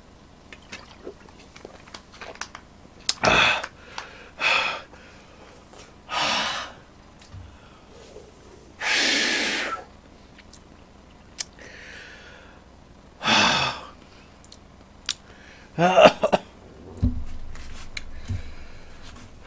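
A man's sharp, hissing breaths through the mouth while reeling from the burn of a very hot chili pepper. There are about six separate gasps, a longer one near the middle, and a short strained groan near the end.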